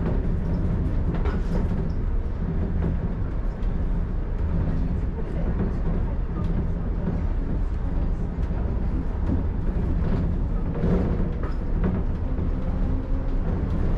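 Shonan Monorail suspended, rubber-tyred car running between stations: a steady low rumble with a humming drone and a few faint knocks.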